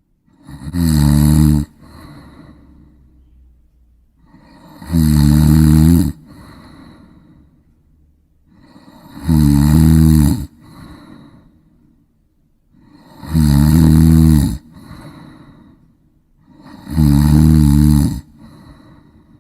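A person snoring in a steady rhythm: five loud snores, about one every four seconds, each followed by a quieter, breathy exhale.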